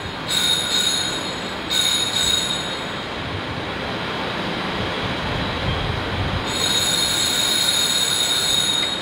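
Altar bells rung at the elevation of the chalice during the consecration: a bright metallic jangle of high ringing tones, in three bursts, with the longest starting a little past the middle.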